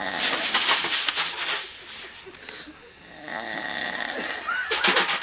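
A sleeping man snoring, two loud snores about three seconds apart, with brushes on a snare drum played along in time.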